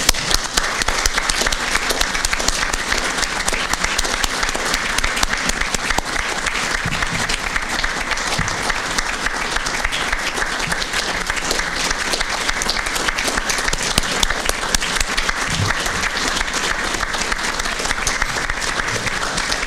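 Audience applauding: many people clapping at once, steady and unbroken.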